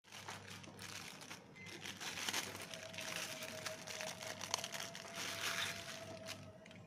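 Clear plastic packaging bag crinkling and rustling in the hands as a dog collar is pulled out of it, with many small crackles.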